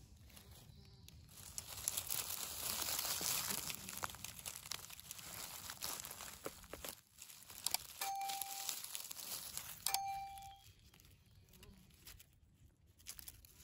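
Hands rustling and crackling through dry leaf litter and moss while pulling up a summer porcini mushroom, with tearing as it comes free of the ground. Two short, steady chime-like tones sound two seconds apart in the second half.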